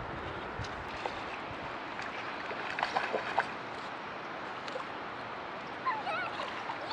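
Steady rush of river water, with a few short splashes about three seconds in from a hooked trout thrashing at the surface as it is played toward the net.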